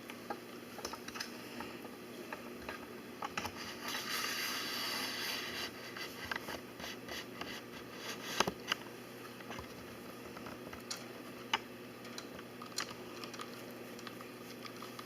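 Guinea pig moving about, with scattered light clicks and scratches, a rustle about four seconds in and a sharper knock about eight seconds in.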